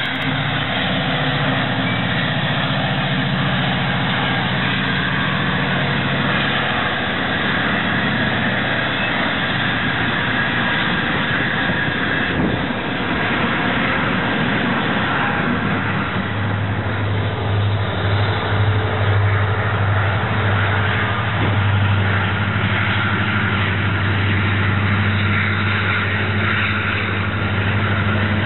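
Union Pacific diesel-electric freight locomotives and their trains passing close by: engines running with a steady low drone over the noise of freight-car wheels on the rails. About halfway through, the deep engine drone gets stronger and stays there.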